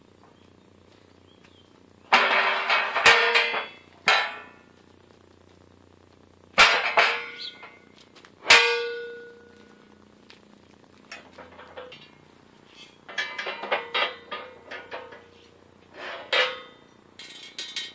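Steel frame of a 20-ton shop press clanging as it is tipped upright and set on its feet: a burst of metal clattering about two seconds in, two sharp ringing clangs a little later, then lighter clinks of steel parts being handled.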